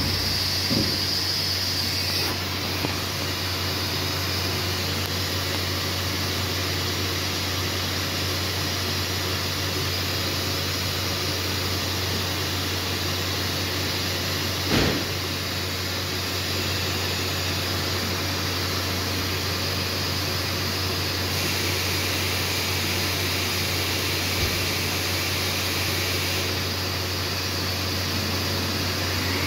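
Steady low hum and fan-like noise from a powered-up edgebanding machine whose glue pot is heating toward temperature. A high whine stops about two seconds in. There is a small click about a second in and a short knock near the middle.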